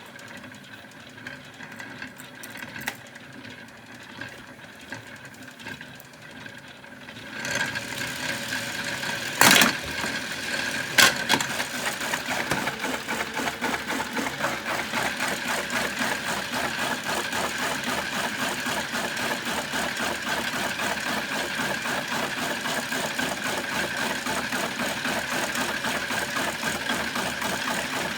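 A toy washing machine's small motor running with tripods knocking and rattling inside its drum. It gets much louder about seven seconds in, with two sharp knocks soon after, then runs steadily with a fast, even rattle and a steady whine.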